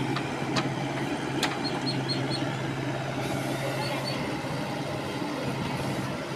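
Diesel engine of a Manitou backhoe loader running steadily as the machine works through deep mud. A few sharp clicks come in the first second and a half, and short high chirps about two seconds in.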